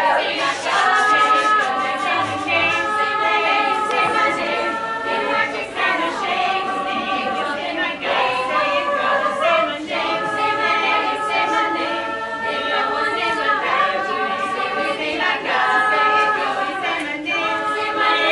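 All-female a cappella group singing in close harmony, holding chords that change every second or two.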